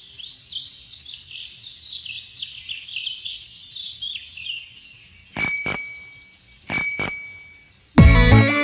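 Birds chirping, then a bicycle bell rung twice, each a quick double ring, about a second and a half apart.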